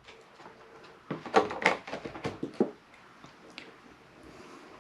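Containers being handled: a quick run of light knocks and clicks between about one and three seconds in, as a lid or jar is set down and picked up.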